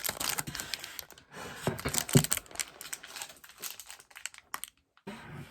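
Plastic snack wrapper crinkling and rustling as it is handled, in irregular bursts, with a brief dead-quiet gap near the end.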